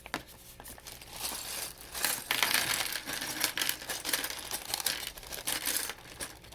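Crinkling and rustling of plastic packaging as the Lego set is handled, with many light clicks of small plastic pieces; it becomes much busier about a second in.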